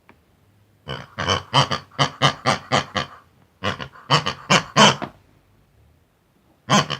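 Cartoon pig character voices chattering in rapid oinking gibberish, in three runs of short syllables: one about a second in, another around four seconds in, and a brief one near the end.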